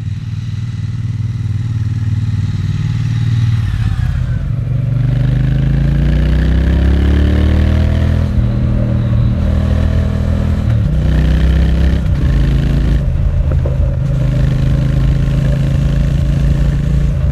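Triumph Bonneville T120's 1200cc parallel-twin engine under way, pulling up through the gears: the revs climb, drop at an upshift about eight seconds in, climb again and drop at a second shift about eleven seconds in, then hold at a steady cruise.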